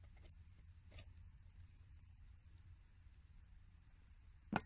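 Quiet whittling of a green stick with a knife: one sharp scrape of the blade about a second in. Near the end comes a louder single knock as the knife is set down on the wooden log.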